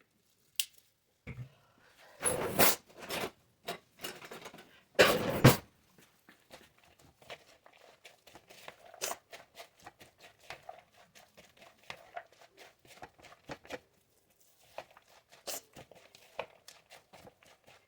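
Kitchen food-preparation handling noises. There are loud crinkling, tearing bursts in the first few seconds, then a long run of light rustling and clicking.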